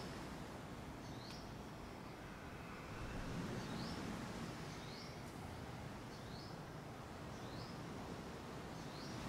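A small bird repeating a short, high, upward chirp about once a second, faint over low room noise.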